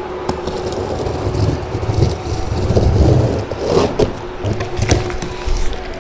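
Plastic packing straps on a cardboard carton being snipped with scissors, then the carton's cardboard flaps being pulled apart, scraping and rustling, with several sharp clicks.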